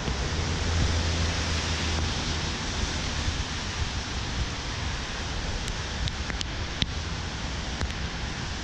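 Wind buffeting the action camera's microphone, a low rumble strongest in the first couple of seconds, over a steady hiss of falling rain, with a few sharp ticks later on.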